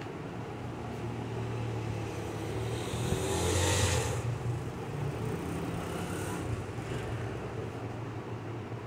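A cloth rubbing along a toner cartridge roller: a brief scrubbing hiss about three to four seconds in, with a smaller one a few seconds later, over a steady low hum.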